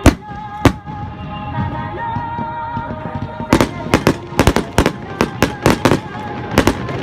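Fireworks bursting over music with held, sustained notes. There are two sharp bangs near the start, then from about halfway a rapid run of bangs, two or three a second.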